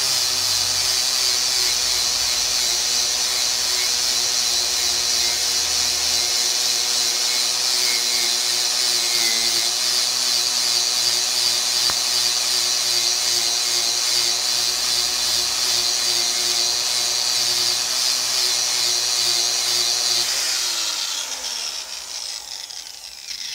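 Electric grinder fitted with a twisted-knot steel wire wheel, running steadily against a steel chainsaw guide bar and scouring off its old surface down to bare metal. About 21 seconds in it is switched off and its whine falls as the wheel spins down.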